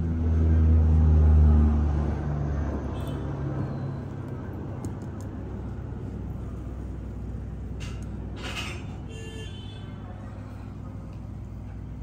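Low mechanical rumble, loudest in the first two seconds, then fading to a steady low hum. A short hiss comes about eight and a half seconds in.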